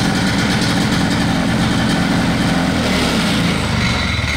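Vintage Ski-Doo snowmobile's 299 single-cylinder two-stroke engine running steadily on its freshly rebuilt Tillotson carburetor.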